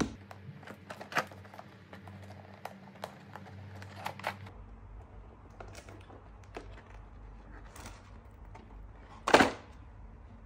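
Cardboard collector box being handled: scattered light taps and clicks as it is turned over and held, then a short, louder scrape about nine seconds in as the lid comes off the box.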